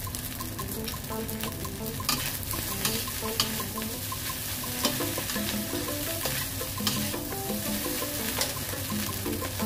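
Fried rice stir-frying in a steel wok: a steady sizzle, with a metal spatula scraping and clanking against the wok as the rice is tossed, the sharpest clanks every second or two.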